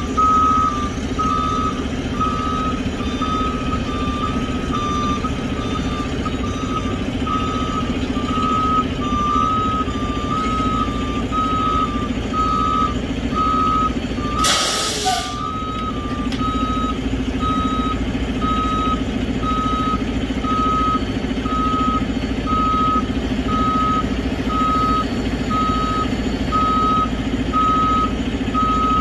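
Roll-off truck's backup alarm beeping steadily at about two beeps a second over the truck's engine running, while the truck loads a roll-off container onto its bed. A short loud hiss about halfway through.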